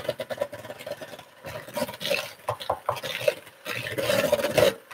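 Kitchen utensils stirring and scraping while spices are measured out: irregular rubbing with small clicks and taps, louder near the end.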